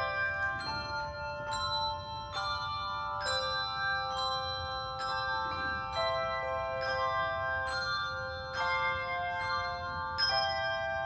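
Church bells playing a tune: single notes of changing pitch struck about once a second, each ringing on into the next.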